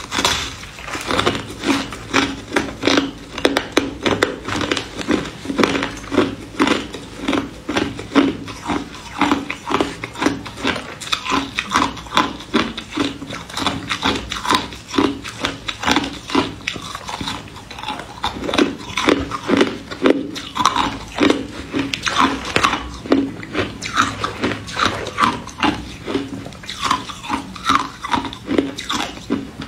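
Ice being bitten and chewed close to the microphone: a dense, irregular run of sharp crunches and cracks that keeps going without a break.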